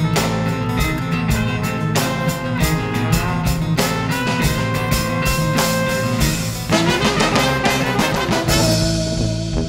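A brass band with drum kit and bass guitar playing a fast instrumental piece, the drums striking densely and steadily under trumpet and other brass. Near the end the drum hits stop and a held brass note carries on.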